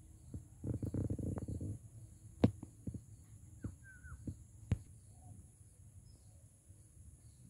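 Outdoor field ambience with a steady high insect drone and faint regular chirping. About a second in comes a brief low rumbling thud, followed by a handful of sharp knocks, the loudest two around two and a half and nearly five seconds in, with one short bird chirp among them.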